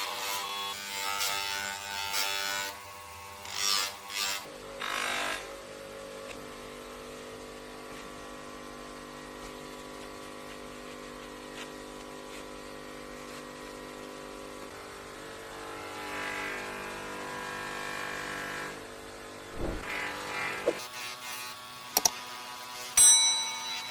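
Small electric power tool motor running at a steady speed, with bursts of abrasive contact noise in the first few seconds and again for a couple of seconds later on, and a few sharp clicks near the end.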